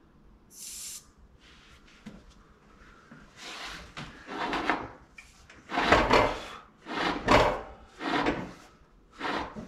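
Hands scuffing over and turning a mini bike's knobby rubber tyre, a series of loud rubbing swishes about once a second, while the tyre is checked for an air leak. A short hiss sounds about half a second in.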